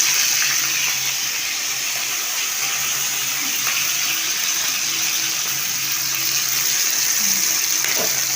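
Salt-and-turmeric-marinated prawns frying in hot oil in a kadai, a steady, even sizzle, with a faint low hum underneath.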